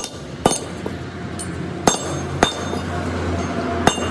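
Hydraulic press working on a torque rod bush. Its pump hums low and steady while sharp metallic pings ring out from the part, five in about four seconds.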